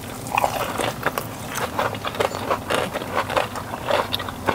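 Two people biting into and chewing fried chicken tenders, a string of irregular crunches and mouth sounds.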